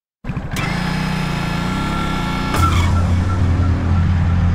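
Vitacci XMT 250 motorcycle's engine running while it is ridden, getting louder about two and a half seconds in.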